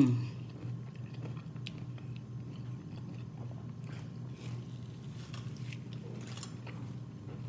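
A person chewing and biting food close to the microphone, with scattered small clicks, while eating a seafood boil in a mukbang; a short 'mmm' at the start and a steady low hum underneath.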